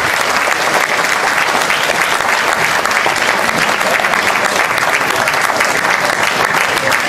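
Audience applauding: many people clapping together in a steady, dense round of applause.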